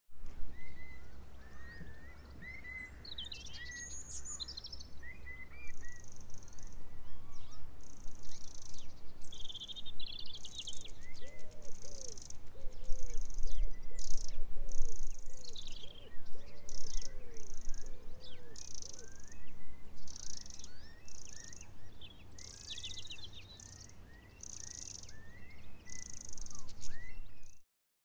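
Wild songbirds chirping and twittering, many short overlapping calls, with a deeper repeated call from about eleven to nineteen seconds in and a steady low rumble underneath. The sound cuts off just before the end.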